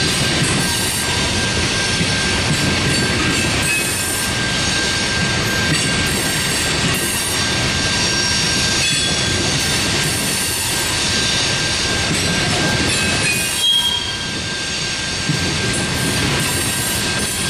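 Freight train's coal hopper cars rolling past on steel wheels: a steady rumble of wheels on rail with a steady high-pitched wheel squeal over it.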